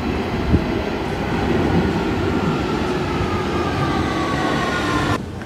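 London Underground tube train pulling into the platform: a loud, steady rumble of wheels on rail with several whining tones gliding slowly down in pitch as it slows. The sound cuts off suddenly near the end.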